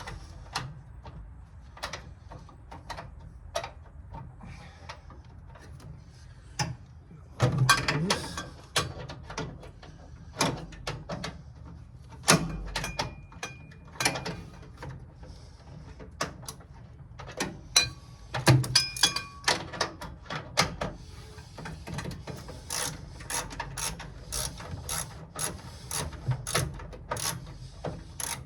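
Socket ratchet wrench clicking as bolts are backed out, in irregular bursts with a few sharper knocks, then an even run of about two clicks a second near the end.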